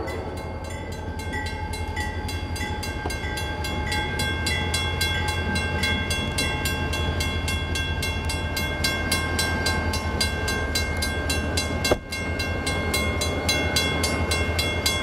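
A bell ringing rapidly, about five strikes a second, over the steady low rumble of an EMD GP40 diesel locomotive rolling past a grade crossing.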